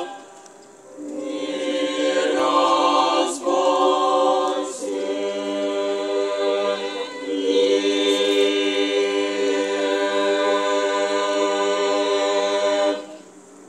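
Youth choir of girls' and boys' voices singing unaccompanied in several parts, holding long sustained chords. A phrase ends right at the start, a new one begins about a second in, and it closes near the end.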